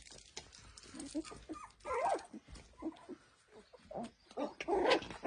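Nineteen-day-old Lagotto Romagnolo puppies whimpering and squeaking, a string of short cries that bend in pitch, loudest about two seconds in and near the end.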